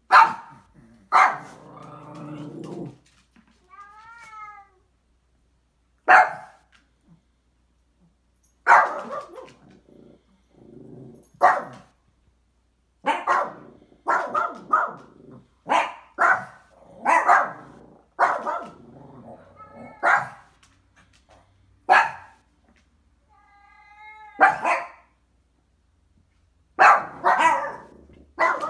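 Small dog barking hard, over and over: single loud barks with gaps between them, and quicker runs of barks in the middle.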